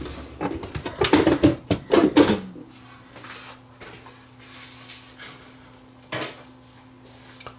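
Metal top cover of a CD changer being handled and lifted off: a quick run of clatters and knocks over the first two seconds or so. A low steady hum follows, with one more knock about six seconds in.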